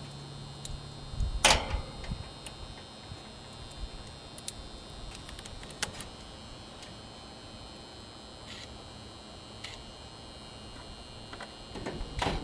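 Scattered light metallic clicks and taps of tools and parts being handled, with one louder knock about a second and a half in. A low steady hum stops just before that knock.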